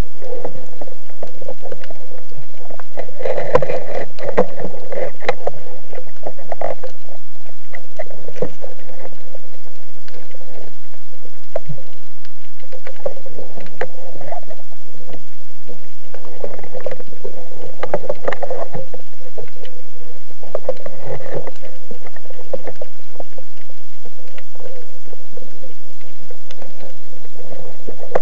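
Underwater sound picked up through a camera's waterproof housing: a muffled, busy stream of clicks and knocks over a steady hum, with louder spells a few seconds in and twice more later on.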